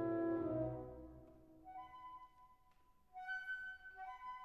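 Background music: a low held chord fades away within the first second, then a soft, high melodic line of alternating notes starts up and grows a little brighter about three seconds in.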